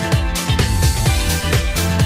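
Electronic background music with a steady dance beat, about two kick-drum strokes a second.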